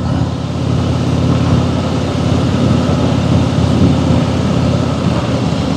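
Harley-Davidson Fat Boy's V-twin engine running steadily while cruising at about 60 km/h, a low engine note under a steady rush of wind and road noise on the rider's microphone.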